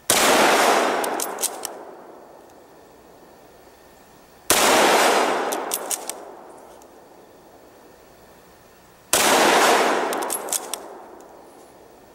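Three rifle shots from a Yugoslav K98k-pattern bolt-action Mauser in 8mm Mauser, about four and a half seconds apart, each report dying away over about two seconds. A second or so after each shot come a few short metallic clicks as the bolt is worked for the next round.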